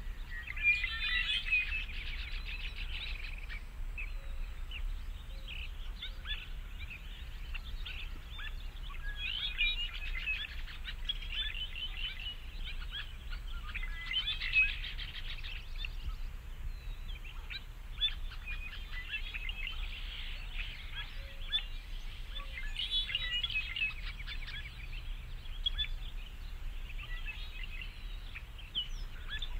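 Small birds chirping and trilling in repeated bursts, over a steady low rumble.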